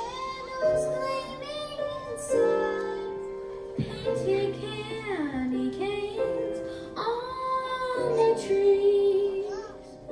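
Elementary-school children's choir singing in unison, holding long notes in phrases with short breaks between them.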